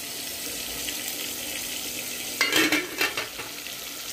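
Chopped onions sizzling as they fry in oil in an aluminium pot, a steady hiss. About two and a half seconds in, a short burst of clattering knocks and scrapes as a wooden spoon stirs in the pot.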